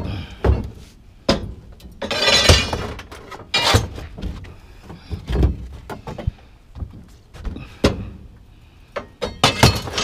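Metal pipes knocking and clanking as they are handled and loaded into a pickup truck bed: a string of separate knocks, with a longer rattling scrape about two seconds in.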